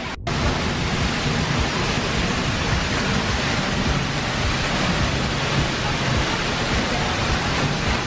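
Seljalandsfoss waterfall heard at close range from behind the falling curtain of water: a loud, steady rush of crashing water with a low rumble underneath. It starts just after a brief dropout at the very beginning.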